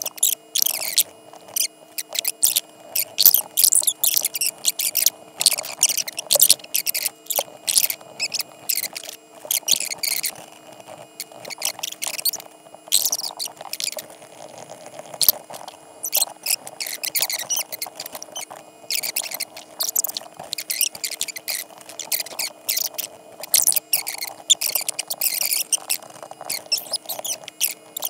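Stylus scratching across a drawing-tablet surface in many quick, irregular strokes, each a short bright scratch, over a faint steady hum.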